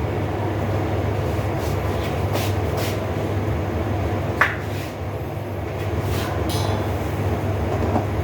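Steady low rumble of a gas burner heating a pot of coconut-milk stew as it comes up to the boil, with a light clink about four and a half seconds in.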